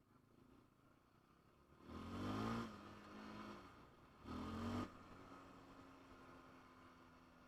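ATV engine blipped twice in short revs, dropping back to a steady idle after each.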